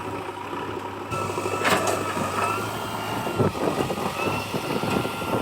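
Heavy diesel engine running steadily, with a thin, steady high whine over it.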